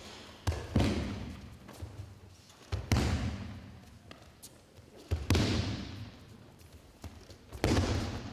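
Aikido partners taking breakfalls on the dojo mats as they are thrown: four heavy thuds about two and a half seconds apart, each trailing off over about a second.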